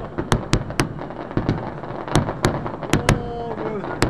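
Fireworks finale: aerial shells bursting in quick succession, about ten sharp bangs in four seconds at irregular spacing.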